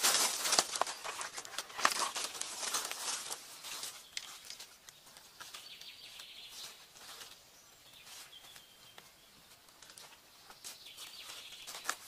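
Footsteps crunching and rustling through dry leaf litter and undergrowth, loudest in the first three seconds or so, then fading to light, scattered rustles.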